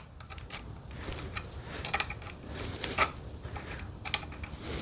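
Lineman's pliers twisting three bare copper ground wires together into a pigtail splice: small metallic clicks and scraping of the jaws on the copper, with a few sharper clicks about two and three seconds in.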